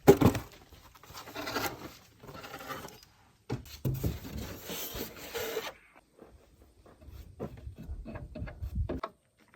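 Paper rustling and crinkling as a goat gets at a paper instruction manual, then a run of small clicks, as of chewing.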